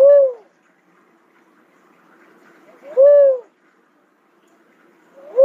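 Cuckoo-dove calling: a single hooting note that rises and falls in pitch, about half a second long, repeated about every three seconds; two calls, with a third starting at the very end.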